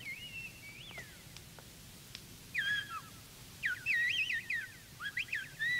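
Human whistling in a coded whistled language, an old outlaws' signalling code: short phrases of warbling notes that glide up and down. The phrases come in bursts, louder from about halfway through, and carry words of greeting and welcome between two old friends.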